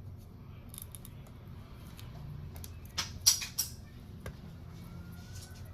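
A quick cluster of light clicks and taps about three seconds in, over a low steady hum.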